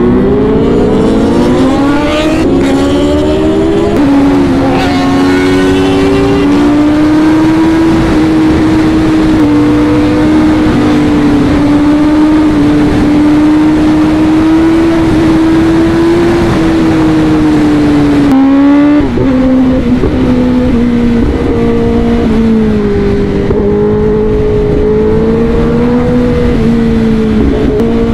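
Kawasaki ZX-10R inline-four sportbike engine accelerating hard at full throttle, its note rising steeply with two quick upshifts in the first few seconds. It then holds a high, steady note at speed over a constant rush of wind noise. About 18 seconds in the throttle eases off with a brief dip in pitch, and the engine settles to a lower steady note.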